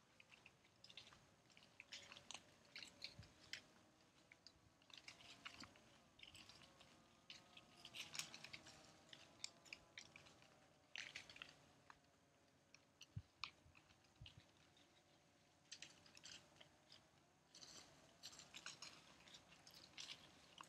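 Still-green elm leaves, loosened by a hard overnight freeze, falling like rain and faintly pattering and ticking as they land on the pavement and on the leaves already down. The ticks come irregularly, sometimes in quick clusters.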